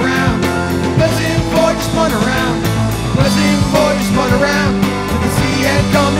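Live rock band playing with electric guitars and a drum kit keeping a steady beat.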